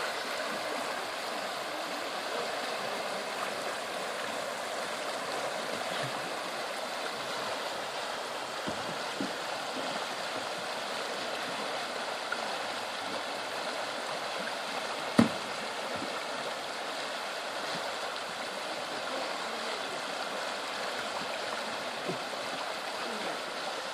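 River water flowing steadily, with a single sharp knock about two-thirds of the way through.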